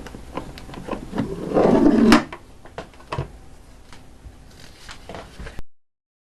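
Remington Quiet-Riter manual typewriter being worked: scattered clacks of its mechanism, with a louder rattling slide that ends in a sharp knock about two seconds in. The sound cuts off abruptly near the end.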